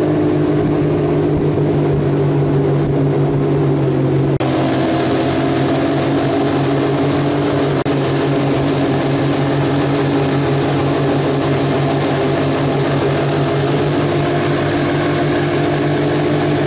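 Outboard motor running steadily at speed, driving a PVC inflatable boat at about 45 km/h, with a constant hum. A hiss of wind and water rides over it and grows louder about four seconds in.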